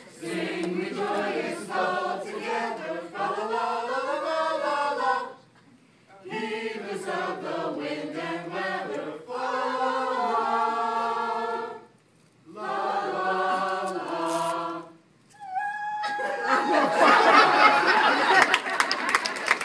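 A small mixed group of carollers singing a Christmas carol a cappella, in three phrases with short breaks. The singing stops about three-quarters of the way through, and the listeners break into applause.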